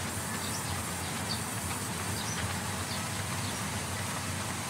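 Sawmill band saw running steadily with a low hum and an even hiss while a wooden plank is fed along its blade.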